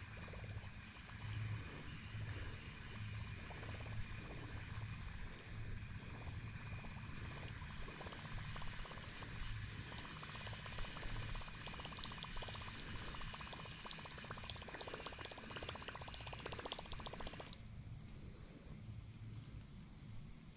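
Faint gurgling and splashing of a topwater chopper lure being reeled back across a pond, its blade churning the surface; the churning stops suddenly about seventeen seconds in as the lure is left to sit. A steady high-pitched insect hum runs behind it.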